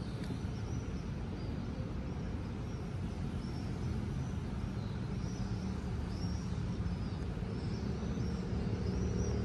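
Steady low rumble of marina background noise, with a hum that grows stronger near the end and small high chirps scattered through it.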